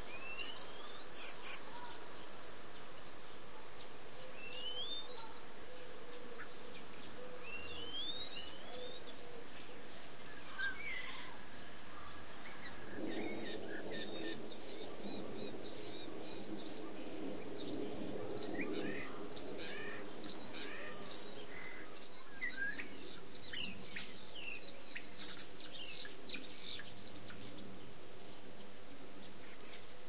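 Small songbirds chirping and twittering over a steady background hiss: a few rising whistled calls in the first ten seconds, then a dense run of quick short chirps through the second half. A low drone swells up about thirteen seconds in and fades by about twenty seconds.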